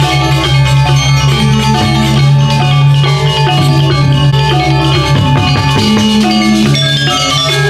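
Balinese gamelan playing: metal mallet instruments strike quick runs of ringing notes over held low tones.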